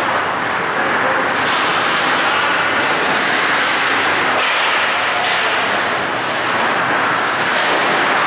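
Steady, loud hiss and rumble of an indoor ice rink during hockey play, with skates carving the ice.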